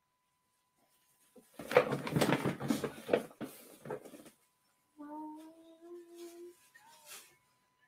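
A rough burst of noise right against a condenser microphone for a couple of seconds. About five seconds in, a man hums a few steady, stepping notes into it, mouth closed. A faint steady high tone sits underneath.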